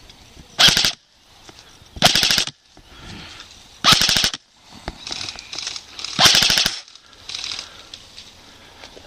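Airsoft rifle firing four short full-auto bursts, each a rapid string of shots lasting about half a second, a second or two apart. A few fainter bursts sound in between.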